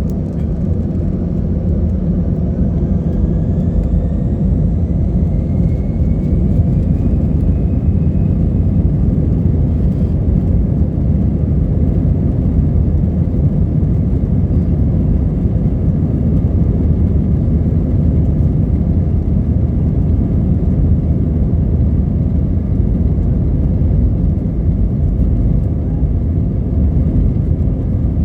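Airliner engines heard from inside the cabin. They spool up with a faint rising whine over the first several seconds, then hold a loud, steady rumble as the plane starts its takeoff run.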